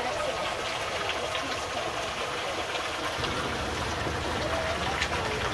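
Pontoon boat cruising on a lake: a steady rush of water along the hull mixed with wind, with the motor running underneath.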